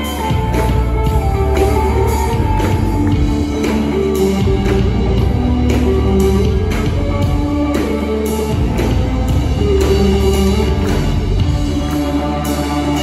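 Live rock band playing: electric guitar, bass guitar and drum kit, with sustained low bass notes under a steady drum beat.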